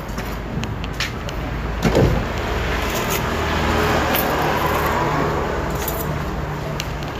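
A vehicle passing on the street, its noise swelling to a peak a few seconds in and then fading, over a steady low hum. Several sharp clicks of a knife and fork against a china plate.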